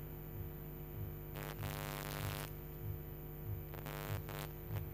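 Low steady hum with soft low pulses about every two-thirds of a second, and a short hiss about a second and a half in and again near the end.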